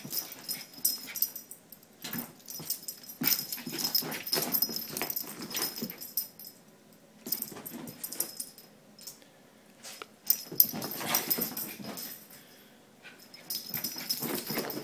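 A small Bichon-type dog chasing and snapping at soap bubbles, its breathing and mouth noises coming in irregular spurts with short lulls between, while its metal collar tag jingles as it darts about.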